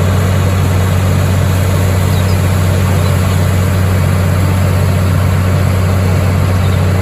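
A large fire truck's engine running steadily at a deep, even hum, driving the pump while its roof-mounted boom water cannon sprays, with a steady rushing hiss over it.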